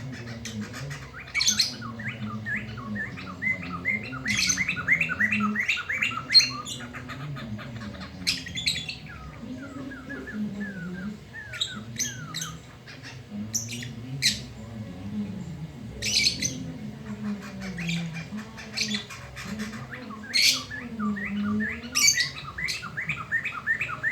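Poksay mantel laughingthrush singing loudly: quick runs of repeated chattering notes, broken again and again by sharp squawking calls.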